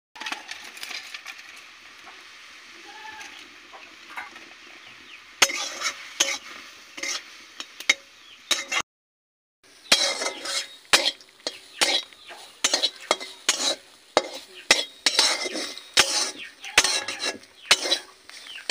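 Food sizzling in hot oil in an aluminium kadai. From about five seconds in, a spatula scrapes and knocks against the pan. After a brief break, the stir-fry strokes come again and again, about one to two a second.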